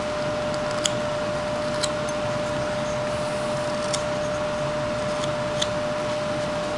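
A steady background hum with one constant tone, and a handful of faint short clicks from a whittling knife cutting into the wooden carving.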